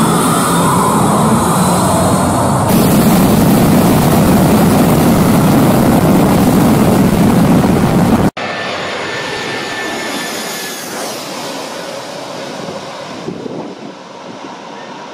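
Jet airliner engines at high power close by: a loud, steady rushing noise of jet blast. About eight seconds in it cuts abruptly to a quieter jet engine rush with a faint whine that fades toward the end.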